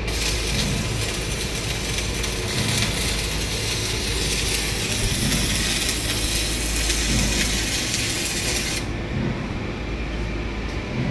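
Stick (MMA) welding arc from a NEOMIG 180 A inverter welder burning at maximum current, about 186 amps: a steady crackling hiss over a low hum. The arc cuts off sharply about nine seconds in, leaving only the low hum.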